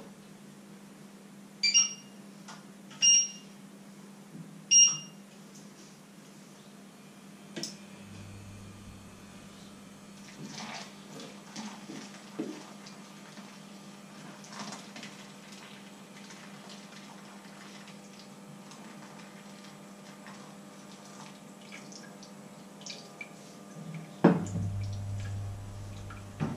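Three short electronic beeps from a kitchen appliance's controls in the first few seconds, over a low steady hum, with small clicks of kitchenware after. Near the end, water runs or pours at the sink.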